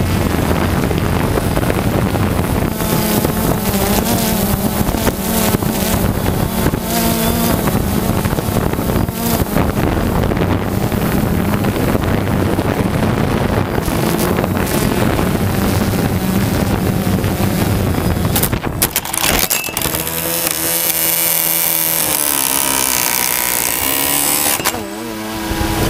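Small multirotor drone's motors and propellers running, with a buzzing pitch that wavers up and down as the throttle changes. A few sharp knocks come about nineteen seconds in, after which the low buzz drops away and a hiss takes over.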